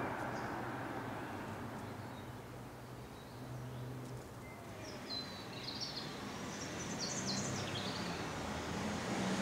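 Garden ambience: a steady outdoor rumble with a low hum underneath, and a small bird chirping a run of quick high notes from about five to eight seconds in.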